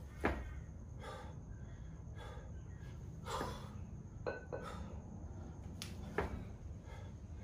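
A lifter breathing hard under load during a set of double 16 kg kettlebell jerks, with forceful exhales about every second. A few sharp knocks come with the lifting: the loudest just after the start, others around four and six seconds in.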